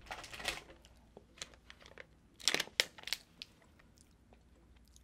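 Plastic snack wrappers crinkling and rustling as they are handled on a table: a few light crackles at the start, a short burst of sharper crackles about two and a half seconds in, then quiet.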